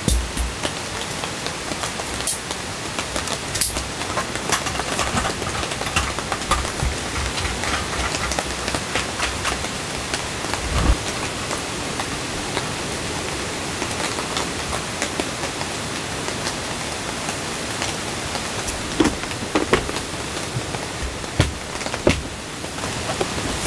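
Steady rain falling on the tent, a continuous hiss, with scattered sharp clicks and knocks from a folding camp table and plastic tub being handled.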